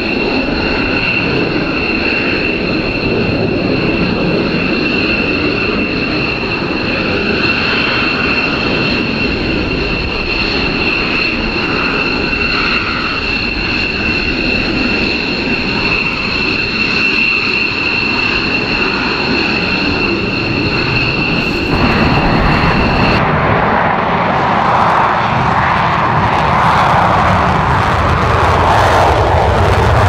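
F-15J fighters' twin turbofan jet engines running at taxi power: a steady high-pitched whine over a broad jet rush. About 22 seconds in the whine drops away and a louder, broader jet noise takes over, swelling toward the end as an F-15 runs up to takeoff power on the runway.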